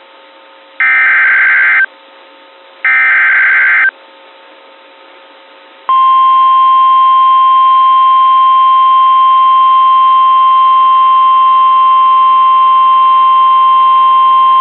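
NOAA Weather Radio Emergency Alert System (SAME) header: two harsh, screechy digital data bursts, each about a second long and a second apart. About six seconds in, the weather radio's warning alarm tone starts, one loud steady pitch, announcing a severe thunderstorm warning.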